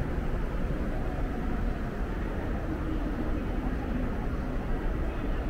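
Steady low rumble of city ambience around a large railway station, traffic-like, with no single event standing out.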